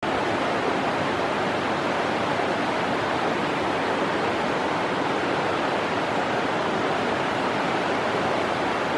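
Steady rush of a fast-flowing river running over rocks in rapids.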